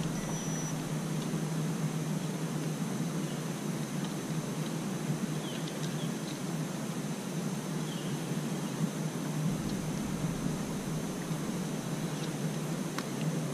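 Steady outdoor background noise, an even hiss with a constant low hum under it, and a few faint short high chirps here and there.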